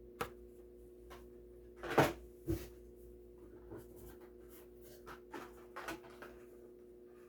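A few scattered light knocks, clicks and rustles of packaged Hot Wheels die-cast cars being handled and set down, the sharpest about two seconds in, over a faint steady hum.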